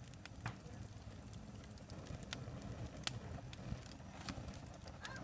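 A tall flame burning up out of a tube in a fire pit, crackling with scattered sharp pops and clicks over a low steady rumble.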